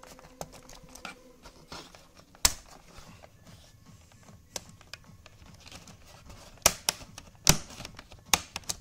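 Irregular plastic clicks and taps from a Toshiba Satellite laptop's replacement keyboard and plastic casing being pressed and snapped into place, with several sharper clicks close together in the second half.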